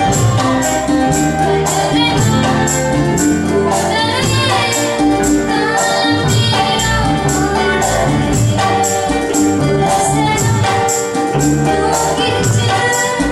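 Live stage band playing a song, with a steady high percussion beat and a singer's voice rising and falling over the instruments.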